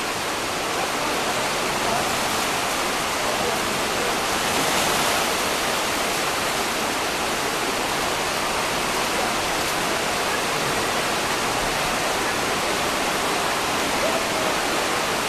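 Shallow river rushing over rocks: a steady, even roar of moving water that swells slightly about five seconds in.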